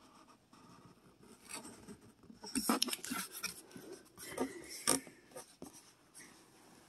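Cardboard toy box being handled: rubbing and scraping of cardboard with a few short clicks, the sharpest about five seconds in.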